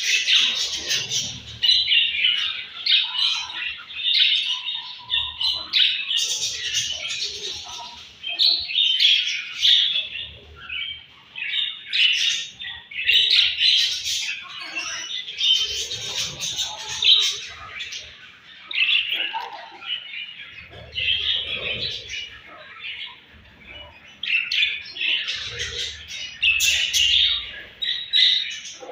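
Many budgerigars chirping at once: a steady mix of short, overlapping calls with no pause.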